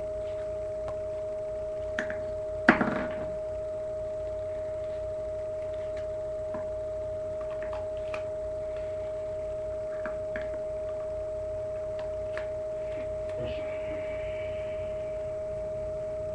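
A steady electronic whine of two constant tones, with one sharp snap about three seconds in and a few light clicks and taps from a homemade paper toy rifle being handled and loaded.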